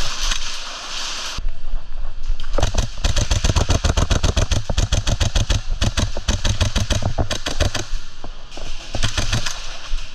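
Airsoft rifle fire in rapid full-auto strings, the sharp shots running close together for several seconds from about two and a half seconds in, with a few more shots near the end.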